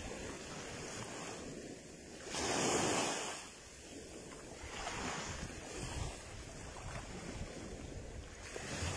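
Rough sea waves washing in and breaking, stirred up by storm weather, with wind buffeting the microphone. One wave surges louder about two and a half seconds in.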